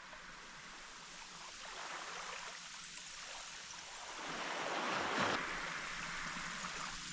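Waves washing over a beach of loose coral rubble and drawing back, the coral pieces tinkling as the water runs out through them: the coral "singing". A wave surges in about four seconds in and is loudest about a second later.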